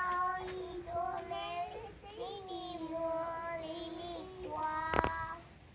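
A little girl singing long, drawn-out held notes, with one sharp knock about five seconds in.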